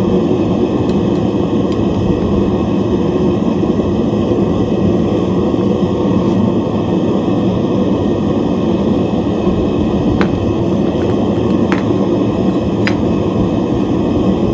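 Propane melting-furnace burner running with a steady, loud roar. A few faint clicks come near the end.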